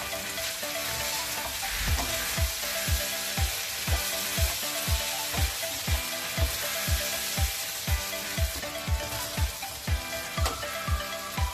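Sliced lamb sizzling in a hot frying pan as it is stir-fried and tossed with a spatula. Background music with a steady beat of about two thumps a second comes in about two seconds in.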